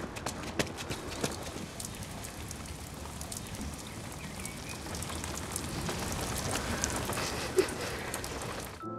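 Rain falling on umbrellas: a steady hiss with many sharp drop hits, growing a little louder past the middle and cutting off suddenly just before the end.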